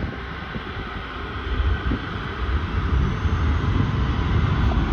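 Large jet airliner's engines, a steady rumble with a faint whine, growing louder as the aircraft approaches.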